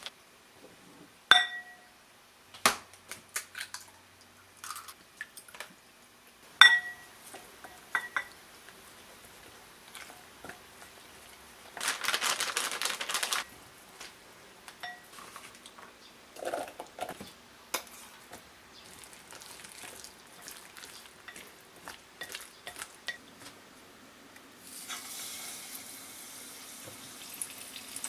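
Sounds of making tempura batter: a few sharp ringing clinks of a measuring cup against a bowl, and batter being stirred. Near the end, hot oil in a wok starts a steady sizzle as battered broad beans and shrimp go in to deep-fry.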